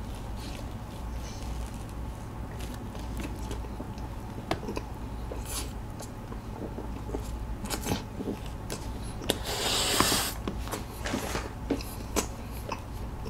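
Close-miked chewing of a soft sausage pretzel topped with whipped cream: a bite, then soft, wet mouth clicks and chews. About ten seconds in comes a brief papery rustle from a tissue being pulled out and handled.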